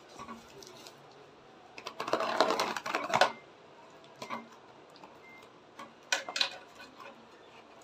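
Scissors cutting through the packing tape of a cardboard parcel, a rapid crackling of snips and tape tearing, loudest for about a second and a half from two seconds in, with a shorter spell about six seconds in.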